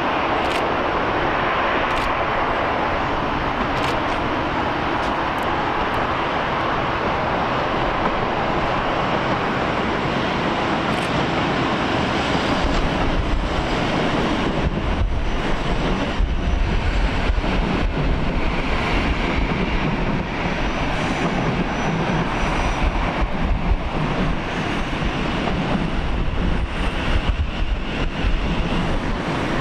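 Passing trains and jet aircraft: a steady loud noise with no pitch to it, with a deeper low component coming in about twelve seconds in.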